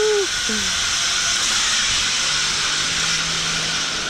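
Zipline trolley running along the steel cable: a steady hiss with a faint low hum joining about halfway through. A held shout ends just at the start.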